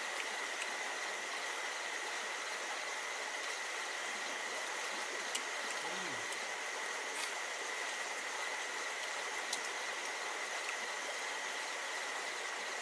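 Steady rushing of a stream, with a constant high whine over it and a few faint ticks.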